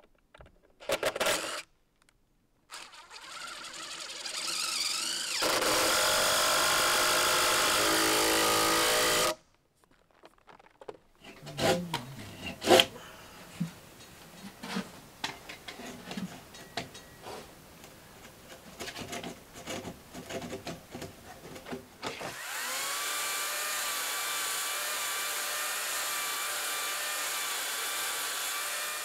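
A power tool winds up, runs steadily for about four seconds and stops abruptly. Then comes a run of irregular knocks and clatter, with one sharp loud knock. Near the end a power tool runs again with a steady whine.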